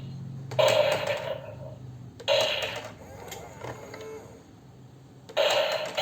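An electronic self-resetting target's sound effect going off three times, each starting sharply at a hit and fading over about a second, with a few separate clicks in between.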